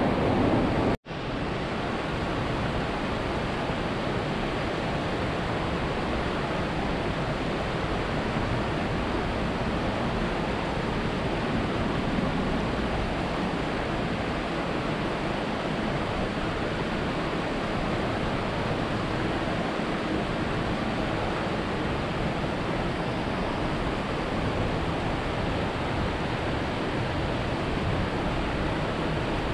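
Steady, even rushing of flowing river water, broken for an instant about a second in.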